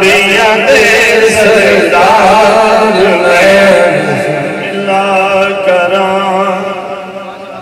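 A man's solo voice chanting a naat through a microphone and loudspeakers, drawing out long, wavering, ornamented notes. It grows gradually softer over the second half.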